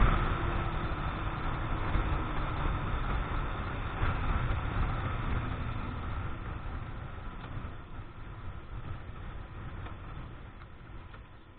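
Keeway X-Light 125 motorcycle on the move: wind rush and engine noise, fading steadily as the bike slows down.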